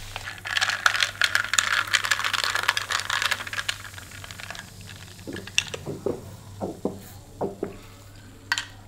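Iced cola sucked up through a stainless steel straw: a crackly, fizzy slurp for about four seconds, then a string of short gulping swallows.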